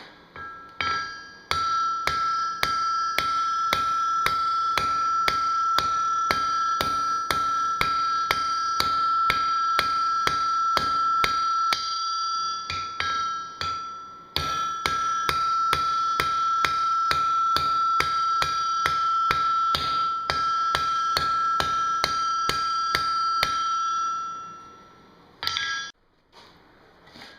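Blacksmith's hammer striking hot steel on an anvil, about three blows a second, each with a steady high-pitched anvil ring. The hammering pauses briefly about halfway, resumes, and ends near the close with one last separate blow.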